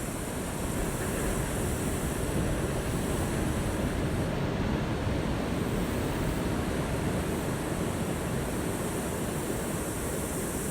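Ocean surf washing steadily, a continuous rush of waves.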